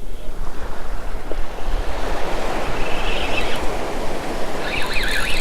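Ocean surf washing in with wind on the microphone. Near the end a spinning reel starts being cranked fast, its whine rising and falling about four times a second, taking up line on a hooked fish that is running toward the angler.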